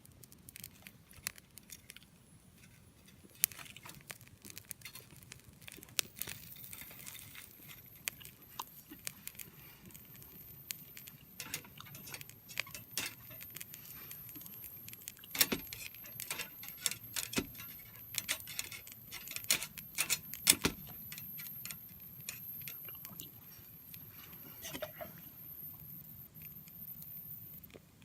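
Small wood fire burning in a B-6君 compact folding grill, crackling with scattered sharp pops, a few of them louder around the middle. A faint thin high whistle sets in about six seconds in and runs on until near the end.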